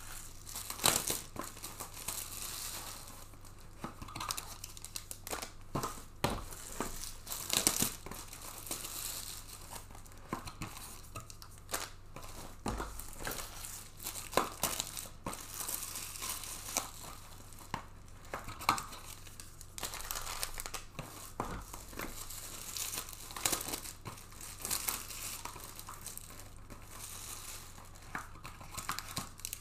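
Plastic shrink-wrap being torn and crumpled off trading-card hobby boxes: irregular crinkling and tearing with many sharp crackles.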